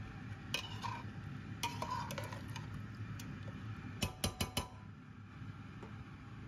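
Metal spoon clinking and knocking against a steel cooking pot of meat and stock, scattered at first, then four quick sharp taps about four seconds in, over a low steady hum.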